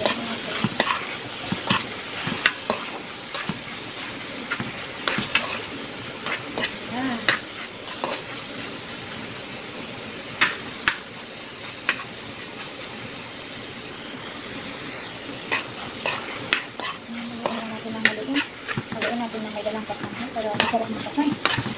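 Chicken and vegetables sizzling in a hot pan while a metal spoon stirs them, with frequent clicks and scrapes of the spoon against the pan.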